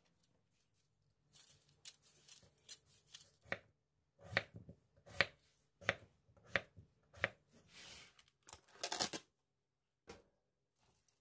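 Kitchen knife cutting a peeled potato on a wooden cutting board. About five sharp knocks come roughly every 0.7 s, after a run of lighter clicks. A short rustle follows near the end.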